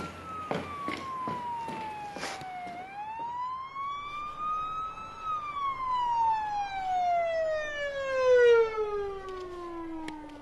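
Emergency vehicle siren wailing. Its pitch falls, rises again, then drops in one long slow glide, loudest about eight seconds in. A few faint ticks come in the first two seconds.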